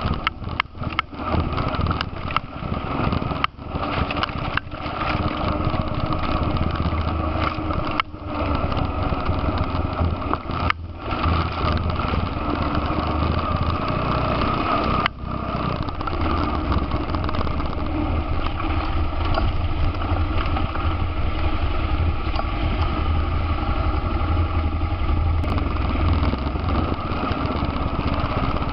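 ATV engine running steadily while riding a rough trail, heard from on board, with a few brief dropouts in the sound in the first half.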